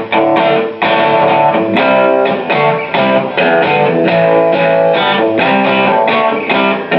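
Electric guitar strumming chords through the Dirty Dog distortion pedal's lead channel with the growl (gain) control turned up, giving a distorted, dark tone through a Peavey TransTube amp.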